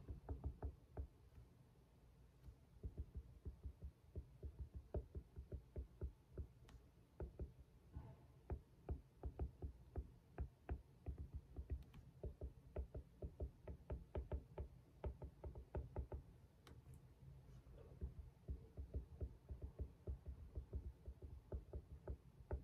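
Light tapping at a desk in quick runs of several taps a second, with short pauses between runs: the sound of someone writing or typing while studying.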